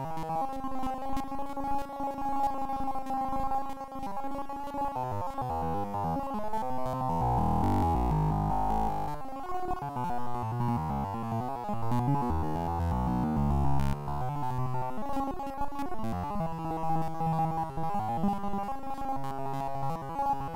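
Background music: synthesizer and keyboard playing held chords and shifting notes.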